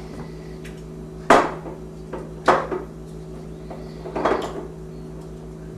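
Kitchen cookware and utensils clattering in three sharp knocks, the first the loudest, over a steady low hum.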